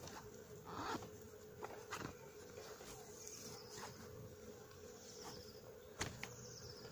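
Faint handling of a pram carrycot's zipped fabric cover: rustling and a few light clicks and knocks, the loudest near the end, over a steady faint buzz.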